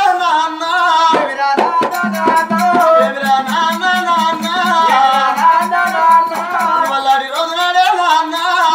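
Telugu Oggu Katha folk singing: a man's voice sings a melodic, ornamented line over a steady beat of frame drum and small hand cymbals.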